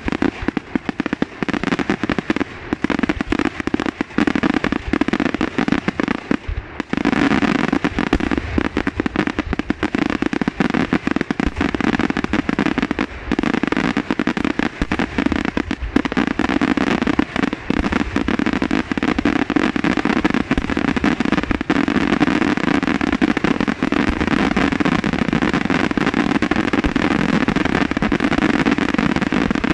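Daytime aerial fireworks going off in a dense, rapid barrage of bangs and crackling, with shells bursting into colored smoke. The bangs thin out briefly about six or seven seconds in, then return just as dense.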